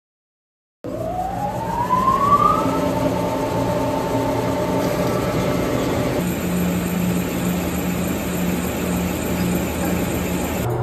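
Weiler 1107 mixer grinder's electric motor starting up about a second in, with a whine that rises in pitch as it comes up to speed. It then runs steadily with a hum, turning its belt sheave.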